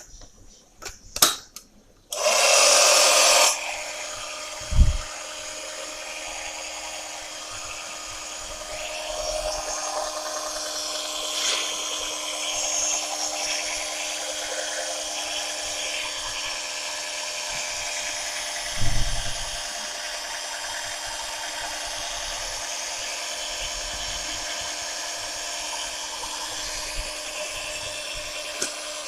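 Mini washing machine running, its small motor whirring steadily. A few clicks and a brief loud rush of noise come just before the whir settles in, and two low thumps come later.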